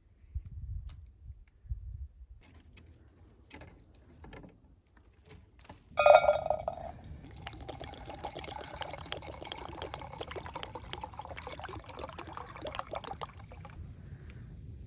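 Liquid being poured in a steady stream for about six seconds, then stopping abruptly. It is preceded by a sudden loud ringing knock and a few faint clicks.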